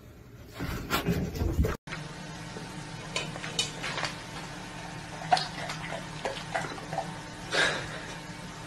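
A few loud knocks and thuds in the first two seconds, then a sudden cut. After it, a steady low hum with irregular clattering and sharp clinks of kitchen objects being knocked about as a cockatoo rummages in a box on a kitchen counter.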